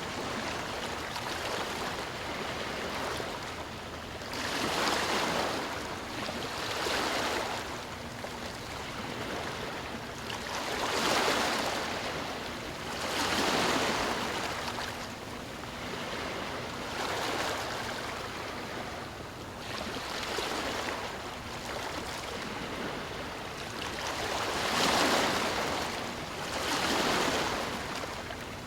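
Sea waves washing onto a shore, a steady rushing surf that swells and falls back every two or three seconds.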